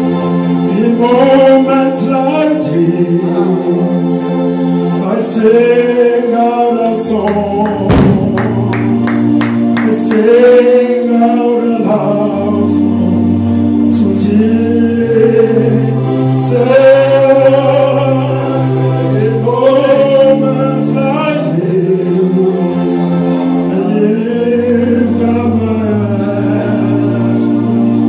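Man singing a slow gospel worship song in held, arching phrases over sustained low instrumental accompaniment. About eight seconds in there is a short run of quick percussion hits.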